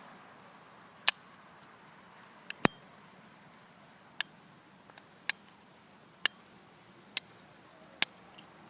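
Sharp clicks of a Victorinox Swisschamp Swiss Army knife's tools snapping open and shut against their back springs, about eight clicks roughly a second apart.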